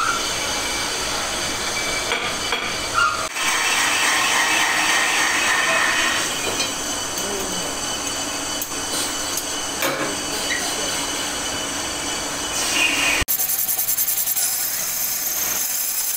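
Metal lathes running in a machine shop, turning brake discs: a steady mechanical din with metal-cutting noise and high whining tones. The sound changes abruptly twice.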